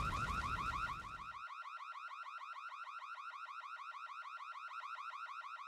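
Electronic alarm sounder repeating a fast rising sweep tone, about ten chirps a second. A low background rumble beneath it cuts off about a second and a half in.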